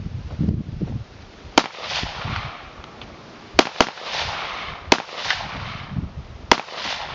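AR-style semi-automatic rifle fired five times: single shots a second or two apart, with a quick double shot near the middle, each shot followed by a rolling echo.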